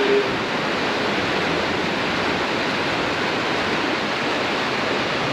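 Steady rain, an even hiss with no single drops or other sounds standing out.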